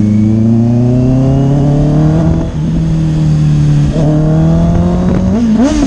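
Honda CBR650R's inline-four engine pulling under acceleration, its pitch climbing, with short dips at gear changes about two and a half and four seconds in. Wind rush runs underneath.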